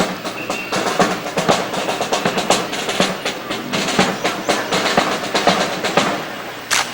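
A drill team's rifles being spun, slapped and struck in a fancy drill routine: a dense, irregular run of sharp wooden clacks and knocks, with one loud crack near the end.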